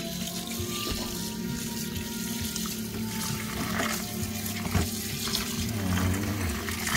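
Kitchen tap running into a stainless steel sink, the stream splashing over an octopus being rinsed by hand in a plastic bowl.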